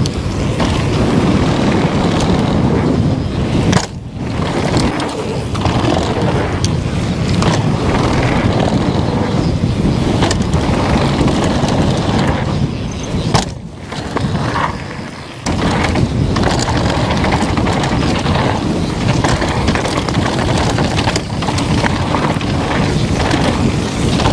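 Downhill mountain bike ridden over rough trail, picked up by a GoPro: wind noise on the microphone over tyres rolling on dirt and rock, and the bike rattling and clattering over bumps. The noise drops briefly about four seconds in and again for about two seconds around the middle.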